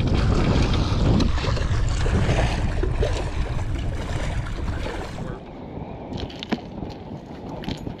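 Wind buffeting the microphone and water splashing as a hooked fish thrashes at the surface beside the boat. About five seconds in, the sound cuts to a quieter bed with a few light clicks and knocks.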